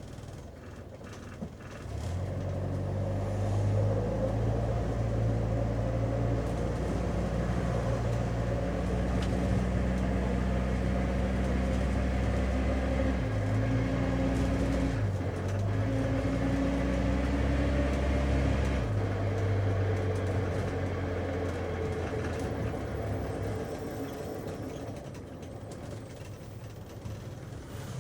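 Taxi cab heard from inside the cabin: steady engine and road rumble. It grows louder about two seconds in, holds a few steady engine tones that shift pitch in steps, then eases back to a quieter rumble near the end.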